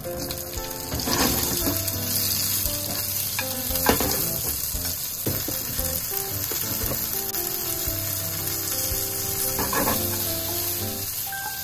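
Edamame pods frying in hot oil with minced garlic and chili in a nonstick frying pan, a steady bright sizzle, stirred with wooden chopsticks. A few sharp clicks of chopsticks against the pan come through the sizzle.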